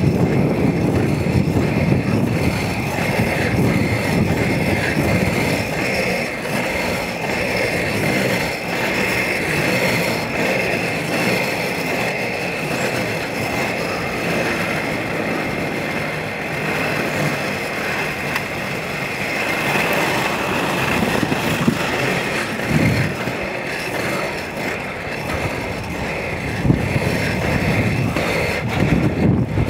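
Inline skate wheels rolling over an asphalt road: a steady, rough rumble of the wheels on the surface.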